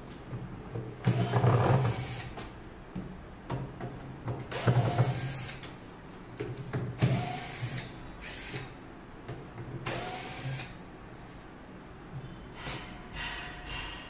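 Cordless drill/driver running in several short bursts, with knocks of handling in between.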